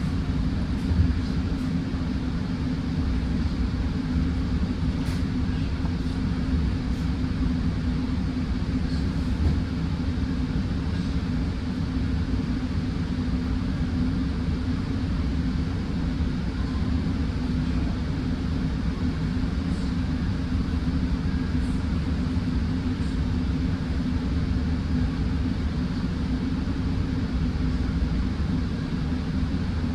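Steady low rumble inside a moving Metrolink passenger train: wheels on the rails and the cars' running gear, with an even drone and a few faint ticks and rattles.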